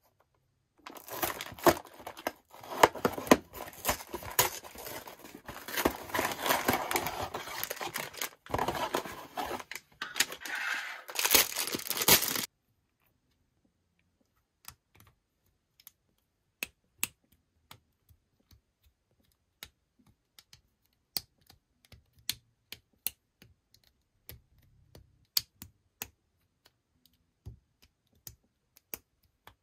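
A LEGO set's cardboard box being torn open and its plastic parts bags crinkling, for about twelve seconds. After a short pause come scattered small clicks as the plastic bricks are handled and pressed together.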